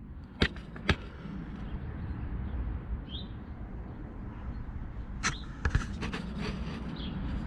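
Hand tools working on a truck's transmission air-line fitting: a few sharp clicks and clinks, two near the start and a small cluster about five seconds in, over a steady low background noise.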